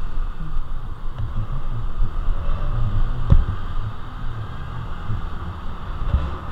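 Honda Navi motorcycle riding at low speed, its small single-cylinder engine running under steady wind noise on the camera microphone. There is a single thump about three seconds in.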